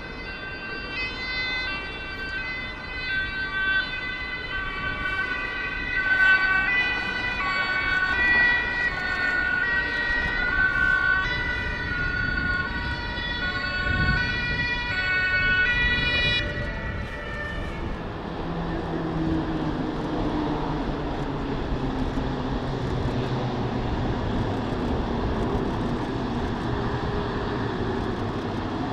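Two-tone emergency siren of a fire service vehicle, switching back and forth between two pitches, which stops about 16 seconds in. After that a heavy airport fire truck's engine is heard running as it drives.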